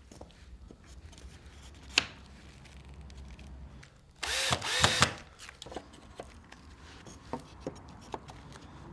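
Cordless drill running in one short burst of about a second midway, its motor pitch rising and falling as it fixes a wooden rung to the ladder frame. A single sharp knock about two seconds in, and light knocks and clicks of wood being handled.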